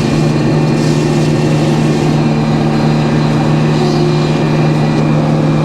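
Sawmill's engine running steadily at an even pitch, with no change in load.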